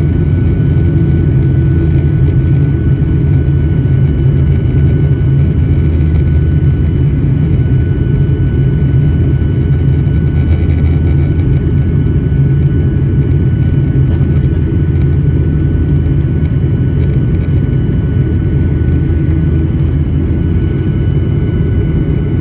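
Jet airliner cabin noise during the climb after takeoff: a loud, steady rumble of engines and airflow, with a faint steady high whine over it.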